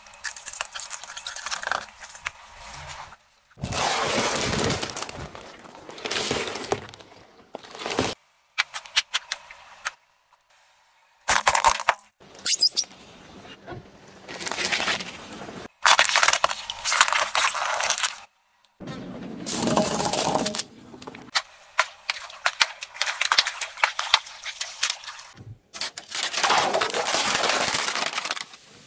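A car tyre crushing a series of objects in quick succession, clip after clip: crunching, cracking and snapping, with abrupt cuts between the stretches of noise. Near the end, clear plastic cups crack and split under the tyre.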